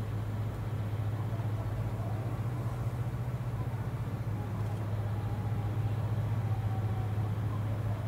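Steady low engine hum of the replenishment ship Towada (AOE-422) as it passes slowly close by.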